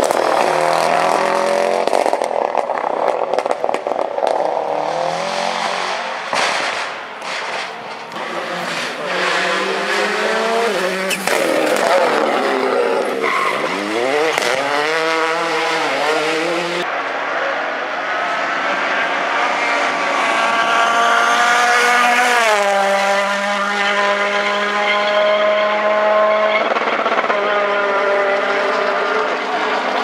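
Rally cars at full speed on a special stage. A Subaru Impreza's turbocharged flat-four revs hard through a corner with sharp cracks from the exhaust. After a cut, another rally car accelerates up through the gears, its engine note climbing and dropping at each shift.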